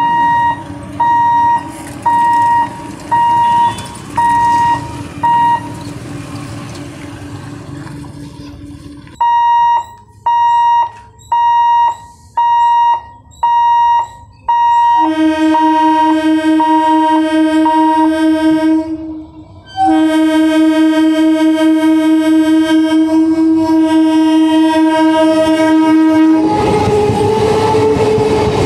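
Electric multiple unit (EMU) train's horn: about six short blasts, then a long held blast with one short break, after which the train passes close by with loud rushing wheel and rail noise near the end. Before the horn, an evenly repeated beeping tone sounds for several seconds.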